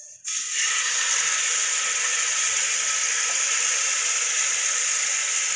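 Yogurt-marinated chicken dropped into hot ghee in a pressure cooker, setting off a sudden sizzle a moment in that then runs on steadily as the meat fries.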